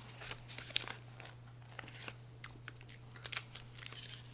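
Faint, scattered crinkles and clicks of a candy bar's wrapper being handled and peeled open, over a steady low hum.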